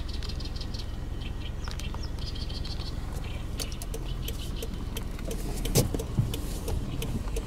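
Steady low rumble of road traffic with birds chirping over it, and two brief thumps about six seconds in.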